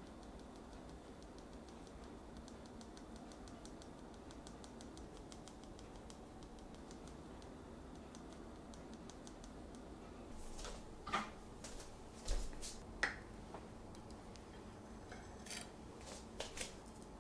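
Light, quick, even tapping of a small sieve as powdered sugar is dusted over a cake. From about ten seconds in come a few louder separate clicks and knocks.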